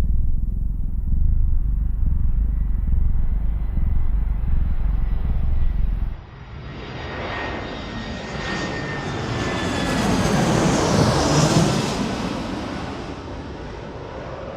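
Jet aircraft noise: a deep, steady rumble that cuts off suddenly about six seconds in. It gives way to a jet plane flying past, whose whine and engine noise build to a peak a few seconds later and then fade, falling slightly in pitch as it goes.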